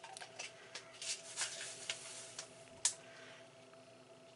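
Faint, irregular clicks from a finger pressing the button on an Instant Pot's control panel while the cook time is raised, with one sharper click about three seconds in. A faint steady hum runs underneath.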